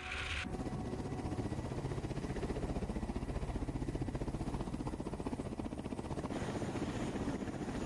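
Kamov Ka-52 Alligator coaxial-rotor attack helicopter running on the ground, its rotor blades beating in a rapid, steady rhythm over the turbine noise. A higher hiss grows louder about six seconds in. A short hiss from the previous shot cuts off half a second in.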